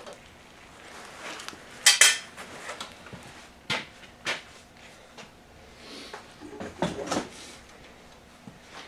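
Hand tools clinking and clanking against steel parts while a hydraulic cylinder's fittings and pins are worked loose: a loud double clank about two seconds in, then scattered single clinks and a quick cluster of clanks near the end.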